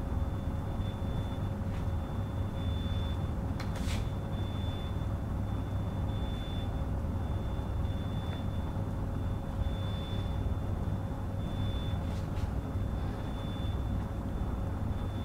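Steady low room hum with a faint constant whine, and a few short squeaks of a marker pen drawing on a whiteboard, about four seconds in and again about twelve seconds in.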